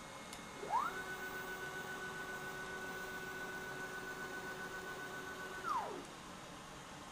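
Stepper motors of a CNC plasma table driving the gantry in a rapid move: a whine that climbs in pitch as the motors speed up under a second in, holds steady for about five seconds, then drops back down as they slow to a stop. The move is the machine returning to zero at the end of its test program.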